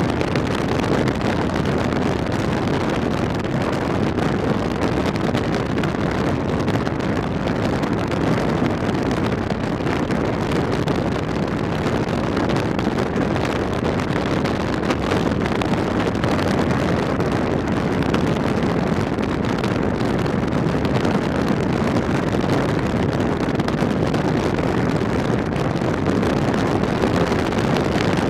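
Steady rush of wind over the microphone mixed with the drone of a Honda Africa Twin parallel-twin motorcycle cruising at a constant speed.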